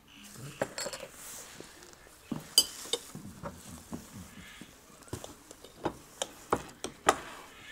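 Cutlery clinking and tapping on plates and dishes in a run of separate sharp clicks, with one brighter ringing clink about two and a half seconds in.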